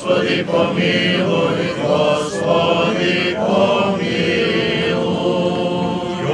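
Men's voices singing Serbian Orthodox liturgical chant, a slow melodic line with long held notes.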